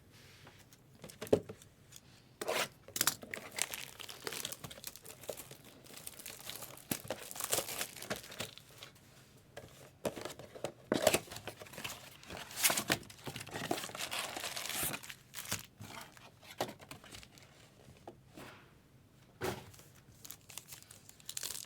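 Plastic wrapping on a sealed trading-card box crinkling and tearing in irregular bursts, with a few sharp snaps, as the box is unwrapped.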